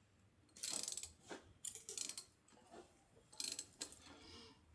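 Hand ratchet with a socket clicking in three short bursts of rapid clicks as a bolt is backed out.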